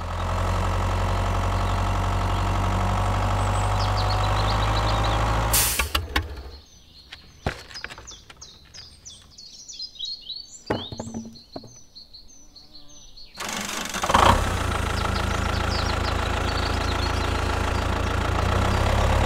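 Tractor engine running steadily with a low hum, then cutting off about six seconds in. Birds chirp in the quieter gap, and the engine starts up again about halfway through and keeps running steadily.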